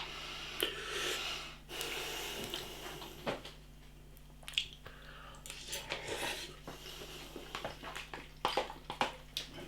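Instant noodles being eaten from a pot: a utensil scraping and clicking against the pot, with soft rustling stretches in the first few seconds and scattered light taps after.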